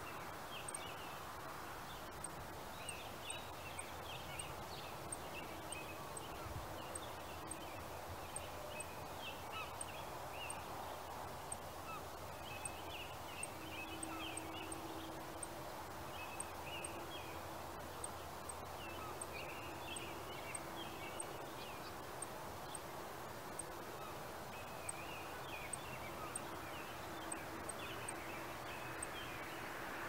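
Birds calling and chattering in scattered bursts over a faint, steady distant city hum.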